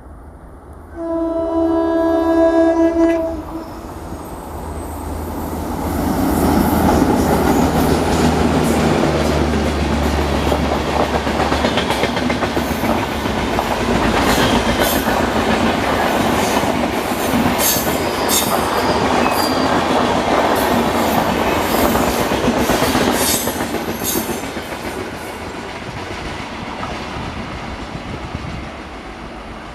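Diesel locomotive sounds its horn for about two seconds, then passes at speed with its engine rumbling. The coaches follow, their wheels clattering over the rail joints, and the noise fades near the end.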